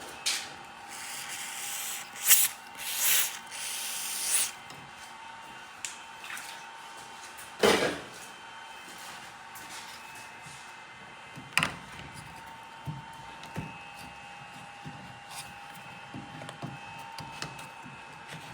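Hands working thin wires through a rubber grommet in a car body: rustling and scraping for the first few seconds, then a couple of sharp clicks and small ticks, over a faint steady whine.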